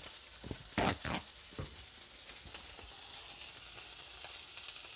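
Cod fillet frying in hot oil in a pan: a steady sizzle, with a few sharp knocks about a second in.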